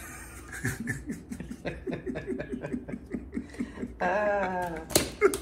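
Laughter: a run of short chuckles, about four or five a second, breaking into a longer drawn-out laugh about four seconds in. A few sharp clicks near the end.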